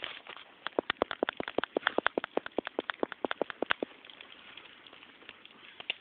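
Campfire wood crackling: a quick run of sharp pops for about three seconds, then dying back to a faint crackle.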